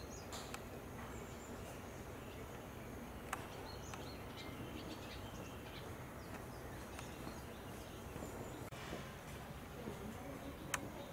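Steady low outdoor background noise with faint, scattered bird chirps and two sharp clicks, one about a third of the way in and one near the end.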